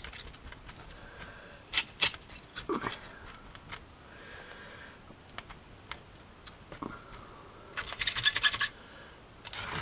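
A paintbrush loaded with PVA glue scratching and dabbing against white foam rocks and the board around them: scattered scratches and taps, then a quick run of about ten scrubbing dabs near the end.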